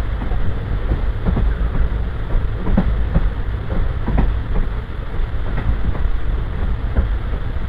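Passenger train coach rolling along the track: a steady low rumble of wheels on rail, with irregular clicks and knocks from the rail joints and coach fittings.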